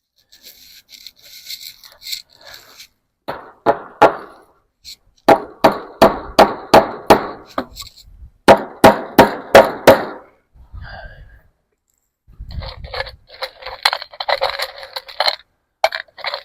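A hammer driving U-shaped fence staples into a wooden fence post to hold wire fencing: runs of sharp ringing strikes, about three a second, in three bursts. Near the end, a few seconds of scraping and rattling.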